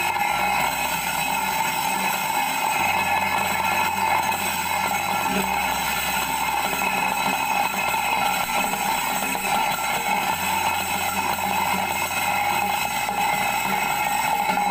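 Electric stainless-steel oil-draining spinner (2-litre centrifugal fryer-oil drainer) switched on and running at speed: its motor and spinning basket give a steady high whine, which stops abruptly near the end when it is switched off.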